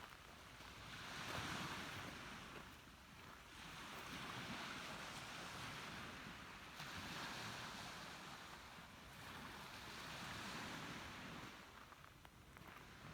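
Sea waves washing in, faint, swelling and fading about four times.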